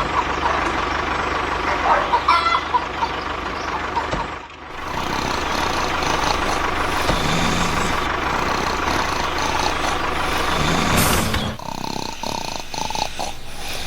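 Steady engine-like vehicle noise, broken by abrupt cuts about four and a half and eleven and a half seconds in, with a few short high blips in the first couple of seconds.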